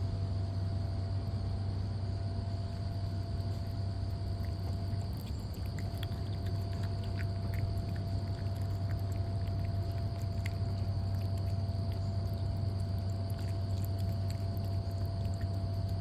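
Steady, unchanging low hum of a running machine, with a faint steady high tone above it and a few faint ticks.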